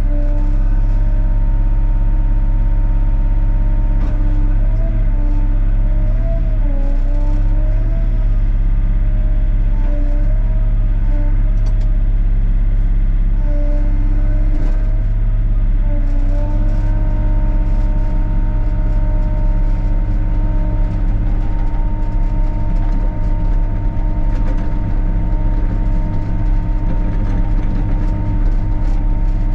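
Sany SY35U mini excavator's diesel engine running steadily under load, with a higher whine that wavers in pitch for the first half or so, then holds steady.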